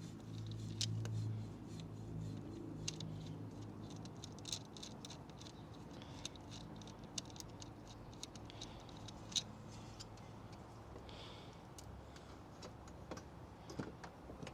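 Scattered small metallic clicks and taps of hand tools and battery terminal screws being worked by hand, over a low steady hum that fades after the first few seconds.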